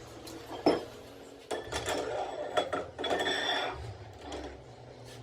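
Metal lathe chuck parts being handled: a sharp clank about two-thirds of a second in, then a stretch of clinking and scraping with a faint metallic ring.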